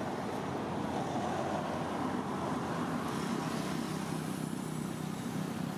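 Steady low rumble of outdoor background noise, with a faint higher hiss added from about three seconds in.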